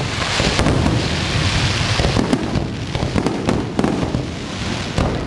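Fireworks going off in a dense, continuous run of bangs and crackling, with many sharp reports overlapping each other.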